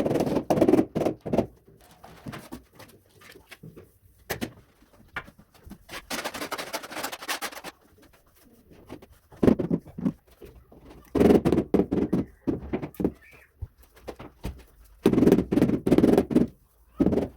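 Pigeon cooing in several spells, mixed with sharp clicks and a stretch of scraping noise partway through.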